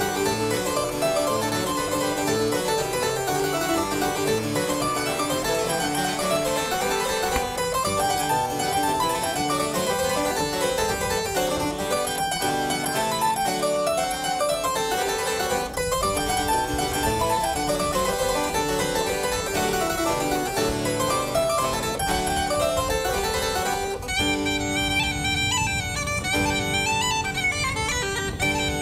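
Background music with quick running notes, changing about four seconds before the end to a tune of long held tones.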